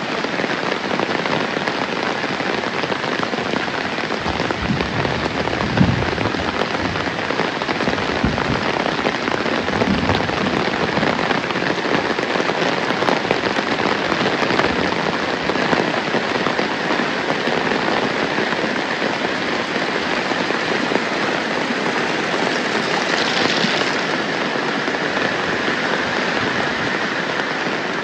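Heavy rain falling steadily, an even, dense hiss of rain on surfaces, with a few dull low thumps between about five and ten seconds in.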